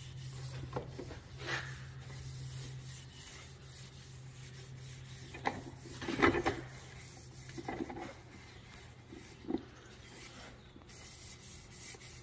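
Rag rubbing boiled linseed oil into a wooden Springfield 1903 rifle stock, in short, irregular swishes and scuffs, the loudest about six seconds in, over a steady low hum.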